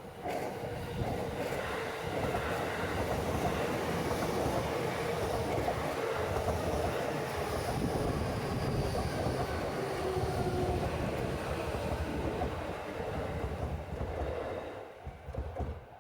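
JR electric train passing close by, the wheels running on the rails. The noise comes up sharply in the first second, holds steady for about fifteen seconds, and drops away quickly near the end as the last car clears.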